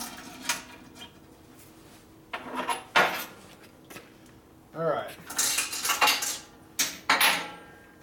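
Loose metal motorcycle clutch and primary parts clinking and clattering against each other and a steel bench as they are handled and set down, in several separate bursts.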